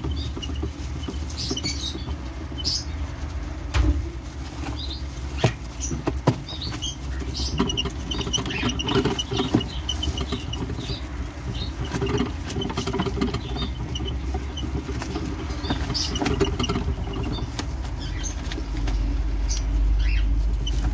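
Hamsters running and scrabbling in a red plastic exercise wheel: a patter of small feet and the spinning wheel rattling over a low rumble, with many scattered clicks and taps.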